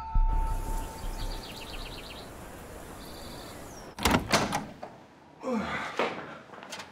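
A door clacks open about four seconds in, a quick run of sharp knocks from the latch and frame, followed by a longer creak-like sound. Before that there is only a faint hiss.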